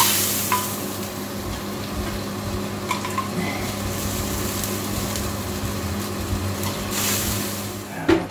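Pork roast sizzling in its roasting pan in the open hot oven, a steady hiss over a low constant hum, with a few light clinks of a metal ladle against a steel jug as the pan juices are scooped out.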